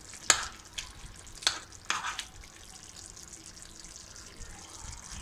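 A serving spoon knocks and scrapes against the frying pan and plate, several sharp clinks in the first two seconds. Under it runs a steady faint hiss of the liver in sour cream sauce simmering in the pan.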